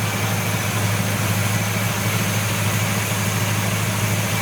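1970 Buick Wildcat's V8 engine idling steadily, with no revving.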